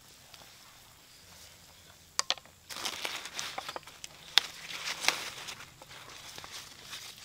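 Crackling and popping from a wood cooking fire under a steaming clay pot of soup: quiet at first, two sharp pops about two seconds in, then a dense spell of crackling that tapers off.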